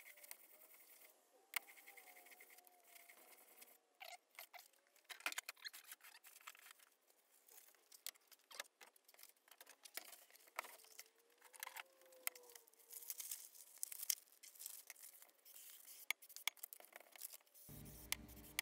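Faint, scattered clicks and rustles of hand handling: the cast-iron body of a Record No. 5 bench plane and sheets of abrasive paper being picked up and set down on a workbench. Faint music comes in near the end.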